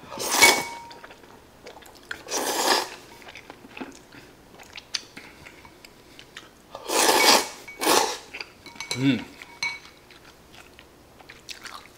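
A person slurping hot udon noodles from a bowl with chopsticks: four short noisy slurps, one about half a second in, one at about two and a half seconds, and two close together around seven to eight seconds. Chewing and light clicks of chopsticks on the bowl come in between.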